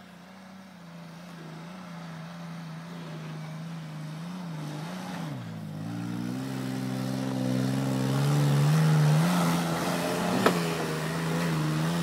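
Ford Explorer's 4-litre V6 pulling hard uphill under load off-road. Its note wavers, sags in pitch about five seconds in, then steadies higher and grows louder as the vehicle comes closer. A single sharp knock comes about ten seconds in.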